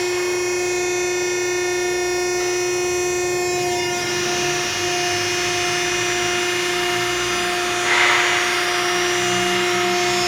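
Machinery running with a steady, loud pitched whine and hum, unchanging in pitch, with a short hiss about eight seconds in.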